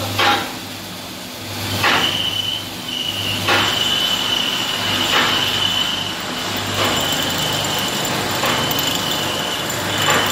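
Stainless-steel ribbon blender running with its ribbon agitator turning: a regular stroke repeating about every second and a half over a low hum, and from about two seconds in a steady high-pitched squeal.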